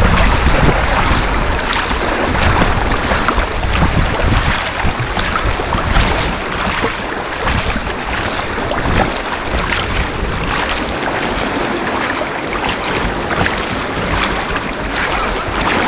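Sea water splashing and sloshing close at hand as swimmers stroke front crawl through choppy water, with a low rumble of wind and water on the microphone.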